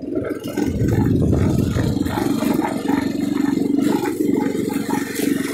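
TrailMaster MB200 mini bike's small single-cylinder engine running as the bike is ridden over grass, heavier in the first couple of seconds and then settling to a steady note.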